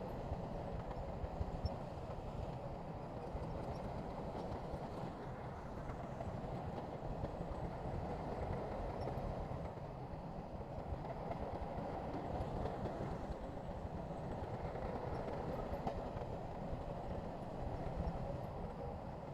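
Heavy diesel earthmoving machinery running, a steady rumble with a clattering, clanking edge throughout.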